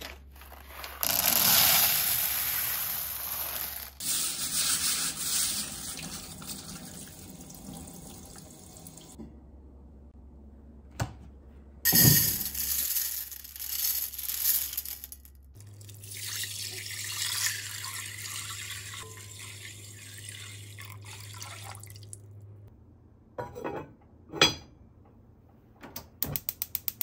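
Water running from a kitchen tap and pouring onto azuki beans, in several spells. Near the end there are a couple of clunks, then the quick, even clicking of a gas hob's burner igniter.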